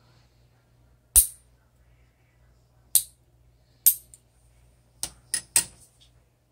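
Steel lever nail clipper snapping through fingernails: six sharp clicks, three spaced a second or so apart, then three in quick succession near the end.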